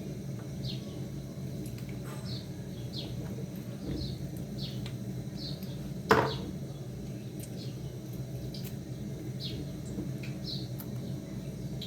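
Bird chirps repeating every half second to a second, each a quick falling note, over a steady low hum. A single sharp knock about six seconds in.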